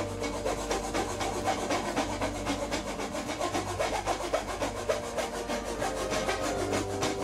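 A small fine-toothed hand saw cutting a piece of wood in a wooden sawing guide, with quick, even back-and-forth rasping strokes.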